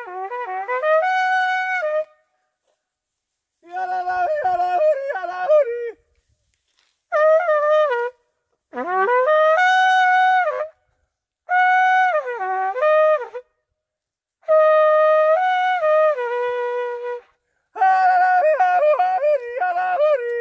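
A small looped brass horn played solo in seven short fanfare-like phrases. Each phrase steps between a few held notes, some of them bent, with brief silences between the phrases.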